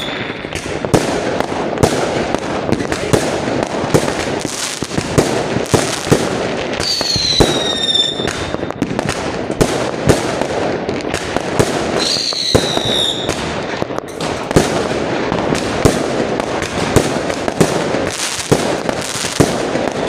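Fireworks going off in a dense barrage: constant crackle with many sharp bangs. A falling whistle sounds twice, about seven and twelve seconds in.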